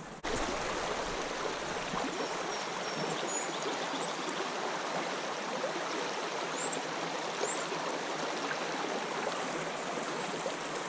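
Creek water flowing steadily. The rushing sound starts abruptly right at the beginning, with a few faint high chirps partway through.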